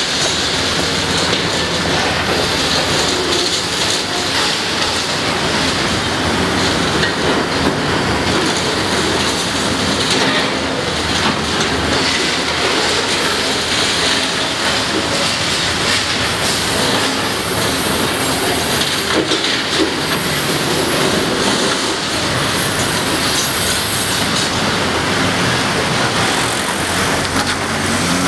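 Cat demolition excavator with hydraulic crusher jaws working a pile of concrete and rebar: a steady machine drone under continuous crunching, grinding and metallic rattling of broken concrete and steel. High metallic squeals come and go through the middle part.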